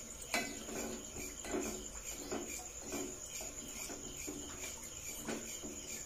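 Crickets chirring in a steady high continuous tone, with a few light clicks of a spoon against the aluminium pot of sugar syrup, one about a third of a second in.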